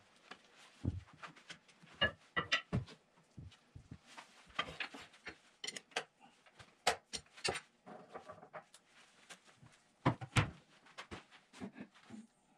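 Scattered knocks and metallic clicks of hand work at a stopped wood lathe: wood being handled and metal chuck bars worked in the chuck. The loudest come in small clusters early on, in the middle and near the end.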